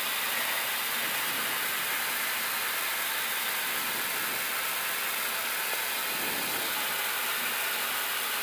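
Steady hiss of an Airbus A320 flight deck while the airliner taxis, cockpit airflow and engine noise blended into an even rush.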